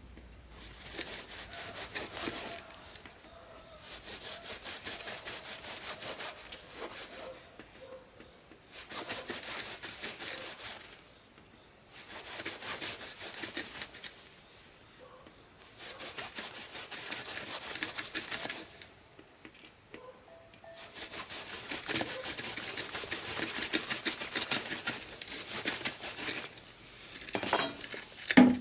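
Rapid rubbing strokes in about six bouts of two to six seconds each, with short pauses between; a couple of sharper knocks come near the end.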